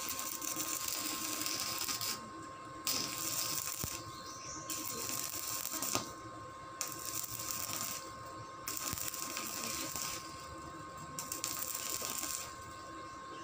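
Stick (arc) welding on a steel gate frame: the arc crackles and sizzles in runs of one to two seconds, with short breaks between them, and stops about a second before the end.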